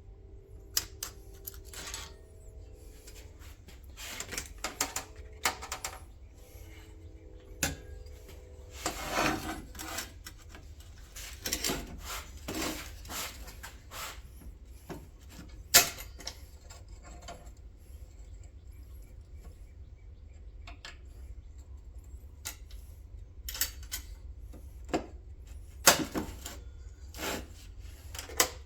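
Metal parts and hand tools being handled: scattered clicks, taps and scrapes, with a few sharper knocks, the loudest about halfway through and again near the end.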